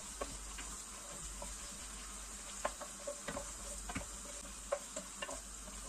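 Diced chicken breast sizzling in hot oil in a pot as a wooden spoon stirs it, with scattered clicks and knocks from the spoon. The meat is browning in the oil.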